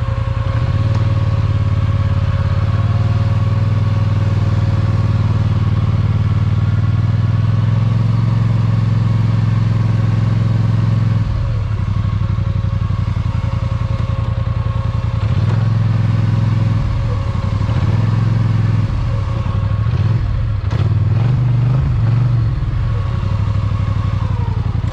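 Polaris Sportsman 850 ATV engine running at a steady speed, then revved up and down several times from about the middle on.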